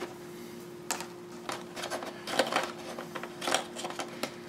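Spare figure hands being pried out of a moulded plastic accessory tray by fingers: scattered small plastic clicks and rustles, five or so irregular ones, the busiest about two and a half and three and a half seconds in.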